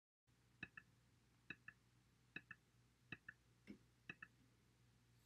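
Faint computer mouse clicks, about one a second, each a quick press-and-release pair, as a button is clicked repeatedly to add base a drop at a time in a titration simulation.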